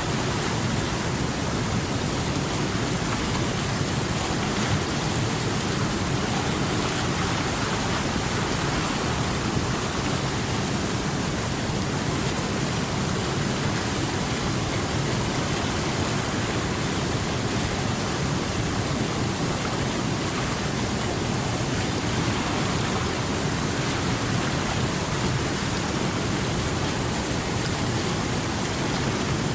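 Water flowing continuously over rocks, a steady, even rushing with no breaks.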